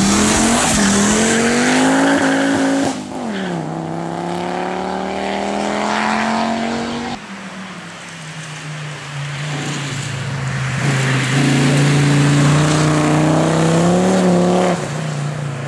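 Fiat Coupé 20V Turbo's turbocharged five-cylinder engine accelerating hard, its pitch rising through each gear and dropping sharply at the upshifts. The sound changes abruptly a couple of times where shots are cut together.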